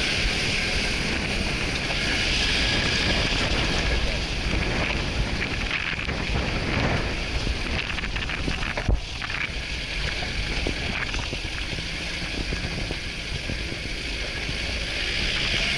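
A 4x4 driving on an unpaved mountain track: a steady rushing noise of wind on the microphone and the vehicle running, with one brief knock about nine seconds in.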